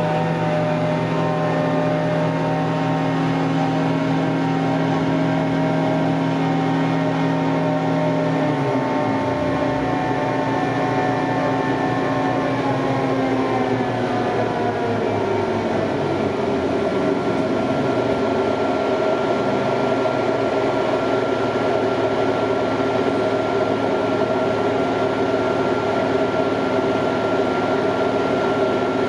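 Diesel engine of a Liebherr LTM 1100-5.2 all-terrain crane running at raised revs while working, its pitch dropping about nine seconds in and gliding lower again around fourteen seconds; a thin, steady high whine holds from then on.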